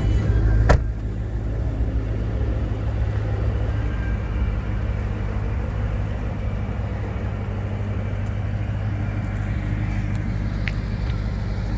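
Dodge Charger Hellcat's supercharged 6.2-litre HEMI V8, fitted with an aftermarket exhaust and cold air intake, idling with a steady low rumble. A sharp knock sounds about a second in.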